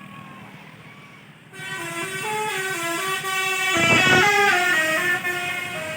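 Tour bus 'telolet basuri' musical horn playing a melody of short stepping notes, starting abruptly about a second and a half in and loudest around the middle. A brief hissing blast breaks in about four seconds in.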